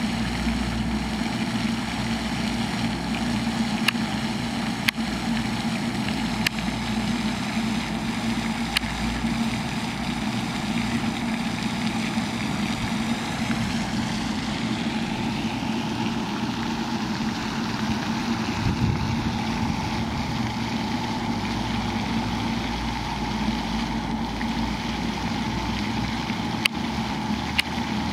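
Steady outdoor background noise with a constant low hum, broken by a few sharp clicks.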